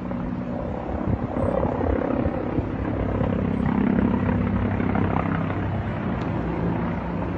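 Military aircraft flying overhead: a steady engine rumble that swells about four seconds in and then eases.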